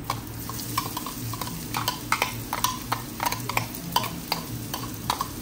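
Blended shallot and garlic paste sizzling as it goes into hot oil in a pot, with a metal spoon clicking and scraping again and again against the glass blender jar as the paste is scraped out.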